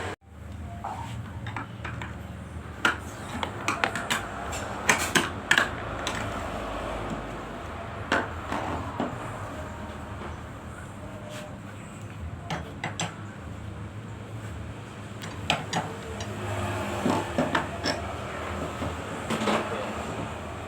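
Scattered clinks and knocks of hands working on a refrigerator door and its parts, in short clusters over a low steady hum.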